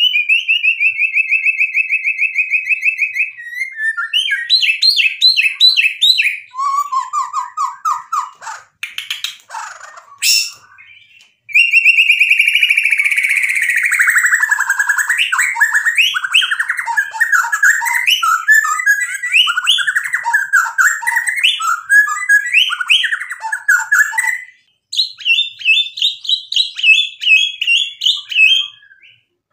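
Male white-rumped shama (murai batu) singing a loud, varied song full of mimicked phrases (isian). It opens with a fast steady trill, breaks off briefly about ten seconds in, then runs into a long rapid trill that slides down in pitch, followed by quick changing whistles and chips.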